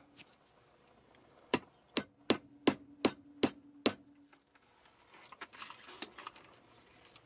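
Hammer tapping seven times, about two or three a second, on a steel rod set in a brass tube, driving the glued tube down into a hole drilled in a wooden log; each tap rings briefly. Faint scraping and handling follow near the end.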